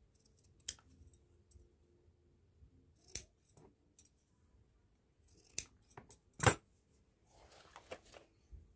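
Hand scissors cutting a small piece of thin leather in a few separate snips, with one sharp click about six and a half seconds in. Near the end comes a brief soft rustle as the leather piece is handled.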